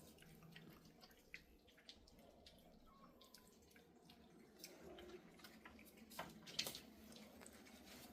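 Faint, scattered wet clicks and ticks of a cat eating, with a couple of slightly louder clicks about six seconds in.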